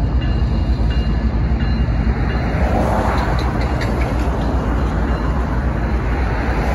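Streamlined passenger cars of a train rolling past on the rails with a steady rumble. Road vehicles drive by in the foreground, a pickup about three seconds in and another near the end, adding tyre hiss.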